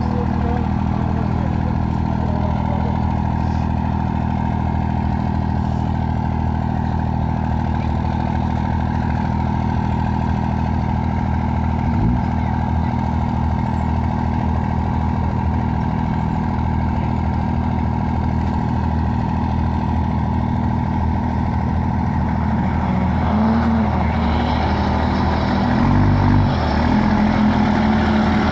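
Diesel engine of a pulling tractor or truck running loudly at a steady pitch, which wavers and then rises over the last few seconds.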